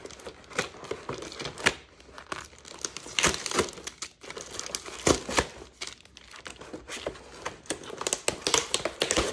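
Plastic bags crinkling and cardboard packaging rustling as doll-stand parts are unpacked by hand: an irregular run of short crackly rustles and clicks.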